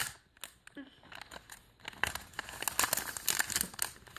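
Plastic packaging crinkling and rustling as a small toy package is handled and opened, getting busier about halfway through.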